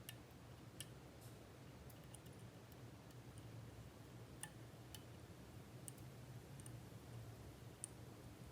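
Faint, scattered metallic clicks of a lock pick working the pins inside an MTL Jr pin-tumbler lock, about ten ticks spread irregularly over a low steady hum.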